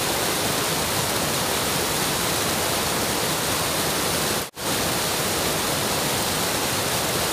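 Steady rush of river water pouring over a small concrete weir, with a momentary break about four and a half seconds in.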